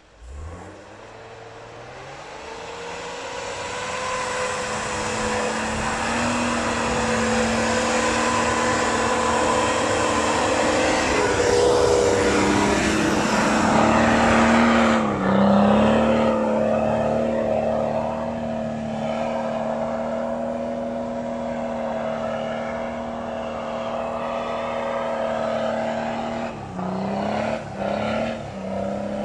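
Engine of an off-road 4x4 SUV on large off-road tyres driving through deep snow, held at steady revs. It grows louder over the first few seconds as the vehicle comes closer and is loudest about halfway through as it passes near. The revs dip briefly a few times near the end.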